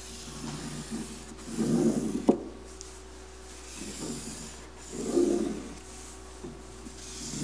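A plastic tool rubbed and scraped hard over carpet glued to a subwoofer enclosure, working the carpet down into the grooves cut in the box. A few rough rubbing strokes: the loudest about two seconds in ends with a sharp click, and another comes about five seconds in.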